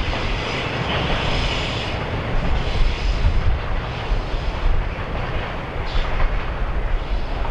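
Freight train of tank wagons rolling away along the track: a steady low rumble of wheels on rail with a hiss over it.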